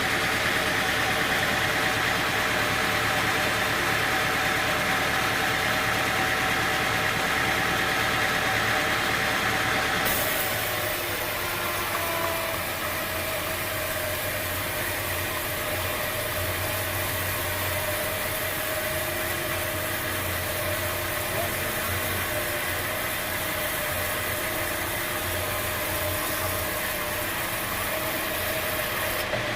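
Sawmill machinery running steadily, a mechanical hum with several steady tones; the sound changes abruptly about ten seconds in and runs on a little quieter.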